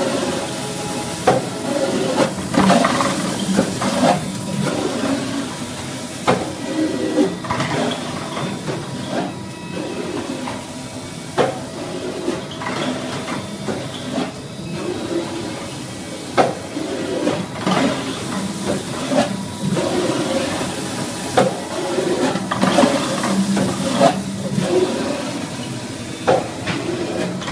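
Sink hairline polishing machine running on metal sinks: a steady motor hum and a hiss of the polishing heads on the metal, broken by frequent sharp metallic knocks and clanks.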